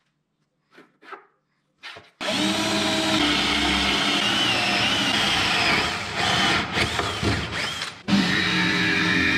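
A few short scratches, then a cordless drill running steadily as it bores into plywood for about six seconds. After a sudden break near the end, a jigsaw runs, cutting the plywood.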